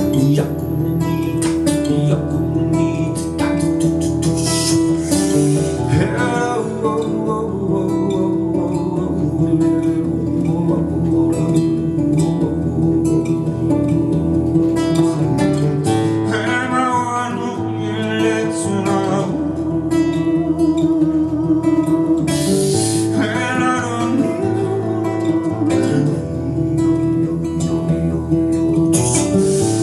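Music: acoustic guitar played with plucking and strumming, joined at times by a wordless voice.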